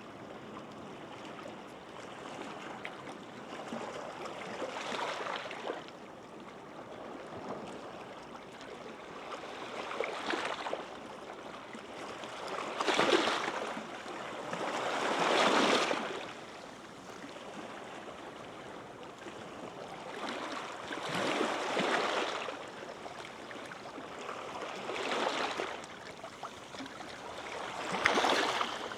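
Gentle sea waves breaking and washing up a sandy beach over a steady hiss of water. The surf swells up and falls back about seven times, every three to four seconds, strongest about halfway through.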